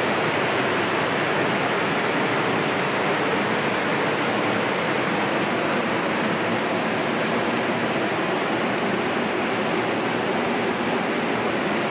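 Rapids on the Cape Fear River at Lanier Falls, water rushing over rock in a steady, unbroken roar.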